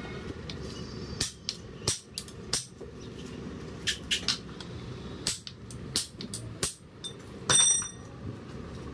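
Hammer blows on a pickup truck's steel leaf spring: about a dozen sharp, irregular metal strikes, the loudest near the end ringing on briefly.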